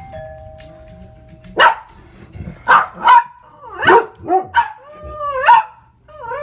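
An electronic two-note ding-dong doorbell chime, followed by dogs barking loudly in response: about six sharp barks, the last one drawn out and rising in pitch.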